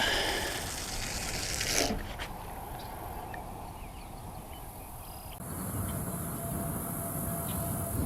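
Outdoor ambience by a pond: a brief rustling, handling-type noise at the start, then from about halfway a steady high-pitched drone of insects.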